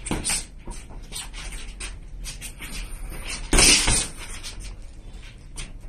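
Boxing gloves striking gloves and arms during sparring, an irregular run of short slaps and thuds with scuffing footwork. One much louder burst comes about three and a half seconds in.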